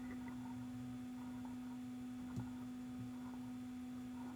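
A steady, faint low tone, held unchanged like an electrical hum, with a small click about two and a half seconds in.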